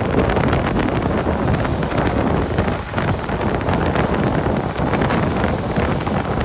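Steady wind rushing over the microphone of a moving motorbike, mixed with its road and engine noise.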